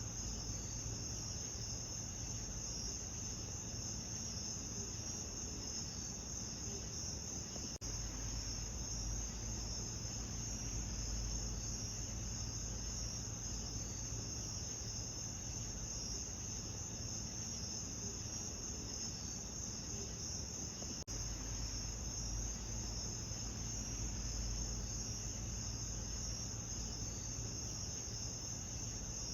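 A steady chorus of night insects, crickets by their sound, shrilling in a high band over a low, even rumble. The sound cuts out for an instant twice, about 8 and 21 seconds in.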